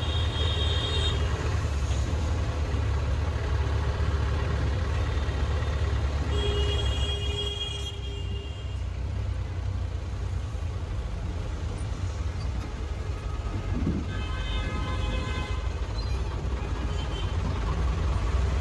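City road traffic running steadily with a low rumble, with high tones sounding three times over it: near the start, around seven seconds in, and around fifteen seconds in.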